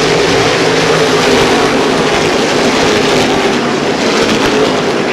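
NASCAR Whelen Modified race cars running at speed around the oval, their V8 engines blending into one loud, steady din with slight rises and falls in pitch as cars pass.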